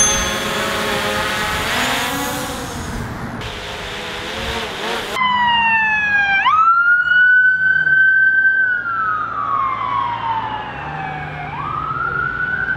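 Quadcopter drone hovering low overhead, its rotors humming with a wavering pitch. About five seconds in, the sound cuts to an ambulance siren wailing in long sweeps, dropping, rising sharply, then falling slowly and rising again near the end.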